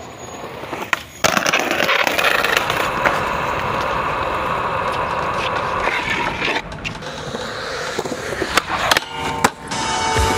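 Skateboard wheels rolling on concrete, a steady rumble lasting several seconds, followed near the end by several sharp clacks of the board hitting the ground.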